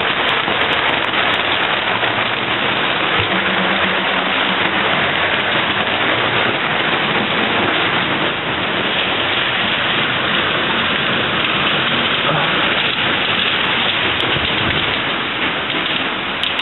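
Hail falling hard on the roof and windows of a house, heard from inside: a dense, steady clatter of impacts that eases slightly near the end.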